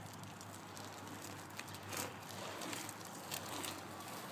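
Quiet outdoor background noise with a low steady hum and a few faint clicks.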